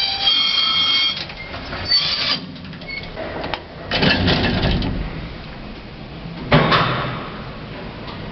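A 1940s–50s gated Otis lift at work, with a modernised motor. A squealing, ringing metal tone lasts about a second at the start and comes again briefly near two seconds, then metallic clattering and rumbling follows, loudest about four and six and a half seconds in.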